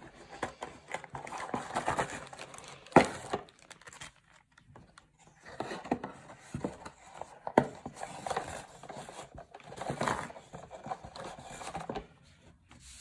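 A cardboard model-kit box being handled and opened, and a plastic bag of sprues lifted out: irregular rustling and crinkling. There are two sharp knocks, about three seconds and seven and a half seconds in, the first the loudest.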